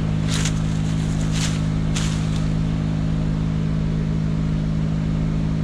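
Vehicle engine running steadily at a constant speed, with three short hisses in the first two and a half seconds.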